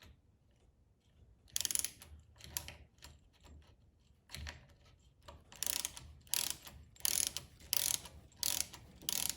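Milwaukee 4-in-1 lineman's insulated ratcheting box wrench on its 1/2-inch end: the ratchet pawl clicking in short bursts, a couple at first, then steadily about twice a second as the handle swings back and forth. A dull knock about four and a half seconds in.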